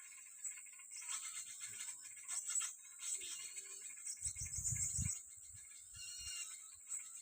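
A steady high-pitched drone of insects such as crickets or cicadas, with small birds chirping over it. About four seconds in comes a low rumble lasting about a second.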